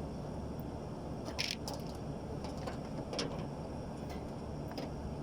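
A steady low rumble with a few short clicks and scrapes: small handling or tool noises, one pair close together about a second and a half in, another near the middle and one near the end.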